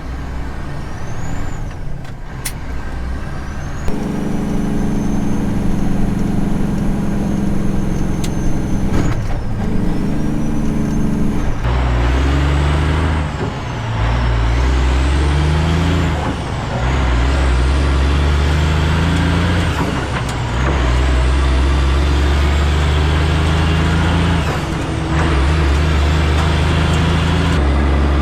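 Diesel truck with a manual gearbox pulling away with a loaded lowboy trailer, working up through the gears. The engine's pitch climbs in each gear and drops briefly at each of about five upshifts, with a thin high whistle rising and falling over it.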